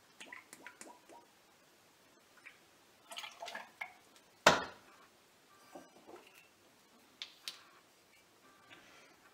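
Irish cream pouring into a shot glass and then into a metal cocktail shaker, with light clinks of glass and bottles being handled and set down. About four and a half seconds in comes one sharp clank, the loudest sound.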